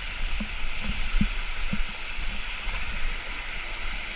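Waterfall: a steady, even rush of falling water, with a few low thumps in the first two seconds.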